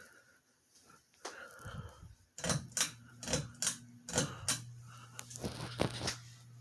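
Harbor Breeze Cheshire ceiling fan motor humming low and steady, the hum setting in about a second and a half in, with a run of about eight sharp clicks or knocks over the next few seconds.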